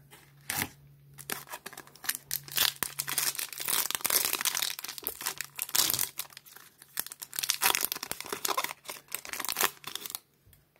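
Foil wrapper of a trading-card pack being torn open and crinkled by hand, a dense run of crackling and tearing that stops shortly before the end.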